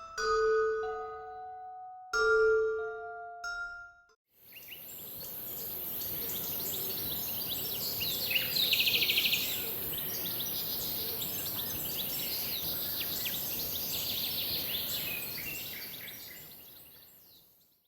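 Background music of slow mallet-percussion notes, glockenspiel or marimba, for about four seconds, then a brief silence. A nature ambience follows: many short bird chirps and a fast trill over a steady high hiss, fading out at the end.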